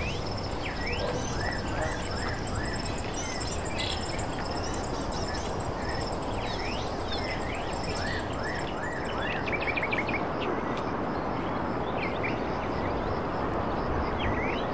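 Birds chirping, with many quick up- and down-sweeping calls and a high pulsing trill, over a steady outdoor background hiss. The calls are busiest through the first two-thirds and pick up again near the end.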